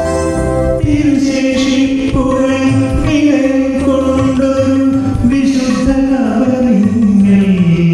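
Malayalam Christian devotional song: a male vocalist sings long held notes over instrumental accompaniment. The voice comes in about a second in and steps lower near the end.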